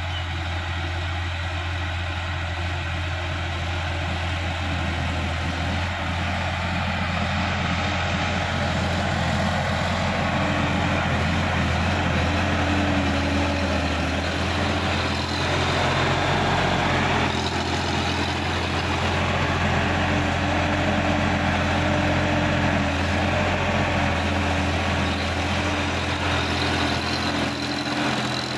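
Sonalika DI-50 RX Supreme tractor's diesel engine running steadily under load while it pulls a rotary tiller through dry field soil. It grows louder as the tractor comes closer.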